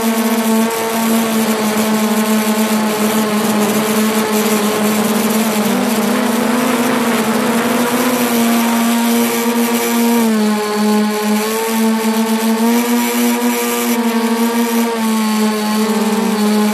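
Electric motors and propellers of a V-tail FPV multirotor, recorded from the craft's own onboard camera. A loud, steady buzzing drone that dips and rises in pitch as the throttle changes.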